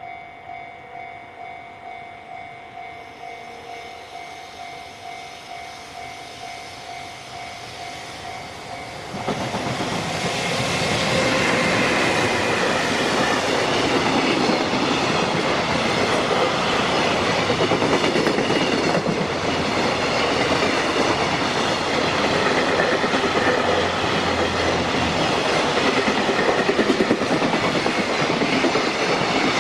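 Japanese level-crossing warning bell ringing in an even, repeating beat. About nine seconds in, a JR Freight freight train reaches the crossing and passes close by, loud, with the clickety-clack of its wagons' wheels over the rail joints to the end.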